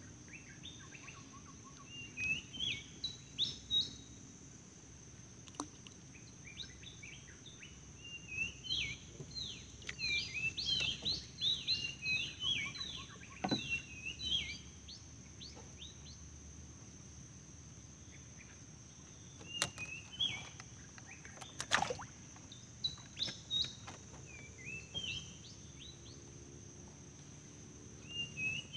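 Birds calling from the riverbank vegetation in bouts of quick, repeated chirping phrases, over a steady high-pitched insect drone. A single sharp tick stands out about three quarters of the way through.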